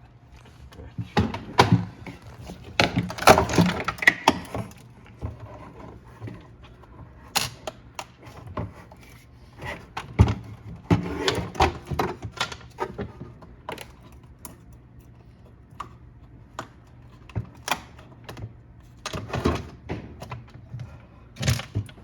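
Irregular clicks, knocks and rattles of refrigerator ice-dispenser parts being handled and taken apart, louder in clusters near the start, around the middle and near the end.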